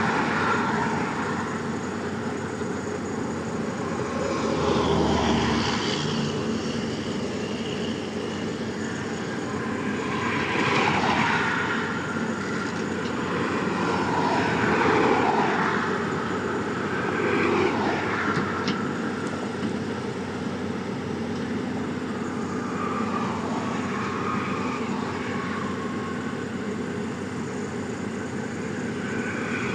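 Heavy diesel engine running steadily, with several louder swells that rise and fall.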